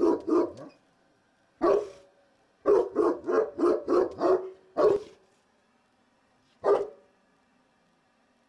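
Cane Corso barking loud, powerful, deep barks in uneven bursts: a couple at the start, a quick run of about six a little under three seconds in, then single barks, the last about two-thirds of the way through. It is alert barking at people he can hear next door but cannot see.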